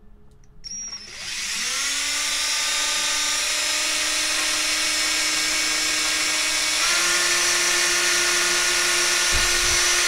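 Cordless drill boring a hole through a thin, lightweight aluminium tube. The motor spins up with a rising whine about a second in, runs steadily, and steps slightly higher in pitch near the end.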